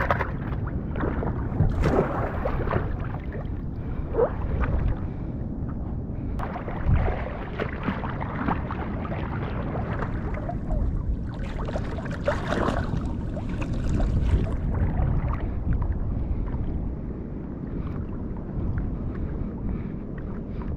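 Sea water sloshing and splashing close by, in short irregular splashes over a constant low rumble.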